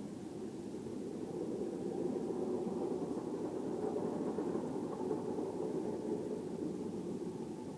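A steady low droning rumble with a grinding, windy quality that swells about two seconds in and eases a little near the end. The recordist heard it as grinding metal, like a very long train derailing, though the evening was calm and clear, and its source is unidentified.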